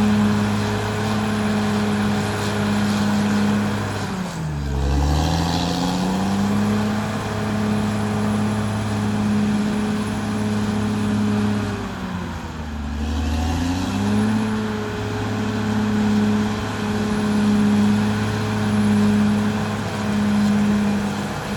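Caterpillar D6R XL bulldozer's diesel engine running steadily. Twice, about four seconds in and again about twelve seconds in, the engine speed sags to a lower pitch and then climbs back up.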